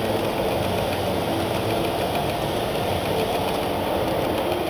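Model train running past on its track: a steady rumble of wheels and motor.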